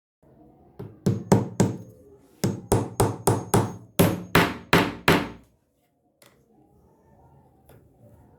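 Hammer striking wood repeatedly as a wooden dowel is locked with a nail instead of glue. There are about sixteen sharp blows: four about a second in, then a quicker run of about twelve, followed by faint low scraping noise near the end.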